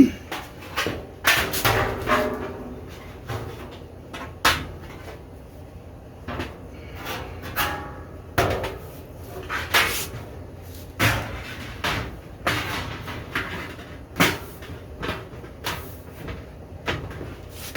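Hands working metal deer-feeder parts: a dozen or so irregular knocks and clanks, with short scraping and rattling stretches between them.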